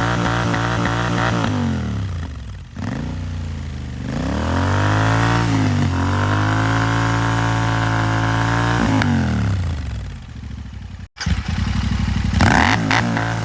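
Royal Enfield Interceptor 650's parallel-twin engine revving through a Red Rooster aftermarket exhaust. The revs are held, fall away, climb again and hold high for about three seconds, then drop. Near the end come sharp crackles and pops on the overrun.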